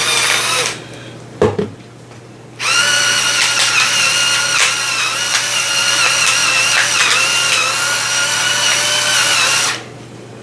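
Small electric salt and pepper grinder whirring in two runs as it grinds seasoning. The first run stops less than a second in, a short click follows, and a second steady, high-pitched whir of about seven seconds stops near the end.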